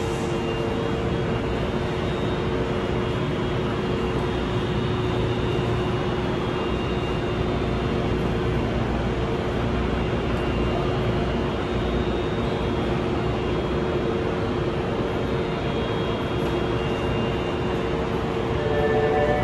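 Osaka Metro 22 series subway train standing at the platform with its equipment running: a steady whirring hum with a couple of steady tones, echoing in the underground station.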